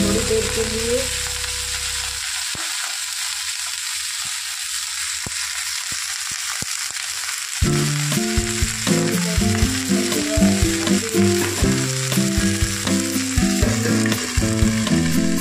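Broccoli sizzling steadily as it fries in hot oil in a steel kadhai, with a spoon tapping and scraping the pan now and then. Background music plays over the first couple of seconds and again from about halfway through.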